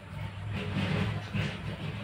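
Chakri ground-spinner firework spinning and burning with an uneven, fluttering hiss.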